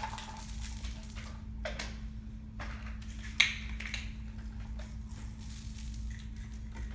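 A few sharp clatters and crunches of small hard pills on a concrete floor, the loudest about three and a half seconds in.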